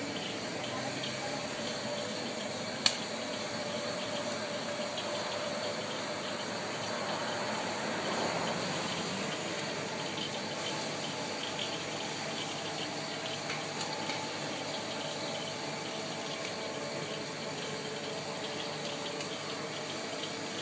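JYR drum coffee roaster running, a steady rushing noise from the machine, with one sharp click about three seconds in.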